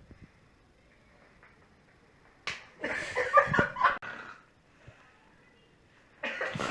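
A sharp hand slap about two and a half seconds in, then a loud second-long flurry of sound, with another loud burst near the end.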